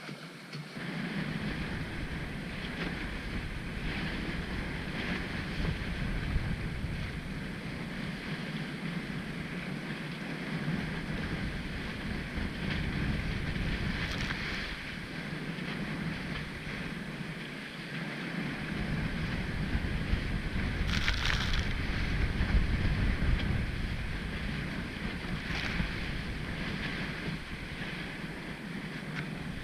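Wind of about 20–25 knots buffeting the microphone over the rush of water along a sailing proa's hulls as it beats upwind through steep chop. A few short splashes of spray hit the boat, the strongest about 21 seconds in.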